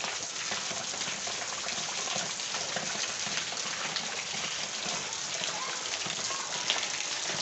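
Light rain falling steadily, with water running off a roof edge: an even hiss with scattered drop ticks.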